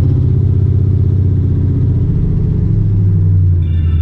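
Dodge Dakota R/T's 5.9-litre V8 idling steadily, just after being started. A few faint high tones come in near the end.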